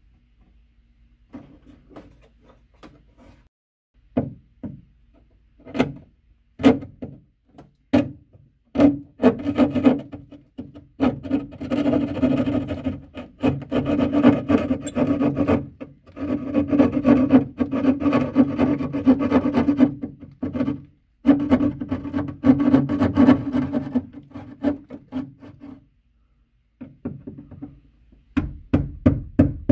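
Hand-held drywall jab saw sawing through drywall in quick back-and-forth rasping strokes. There are a few short scrapes and knocks first, then long stretches of steady sawing, a brief pause, and more strokes near the end.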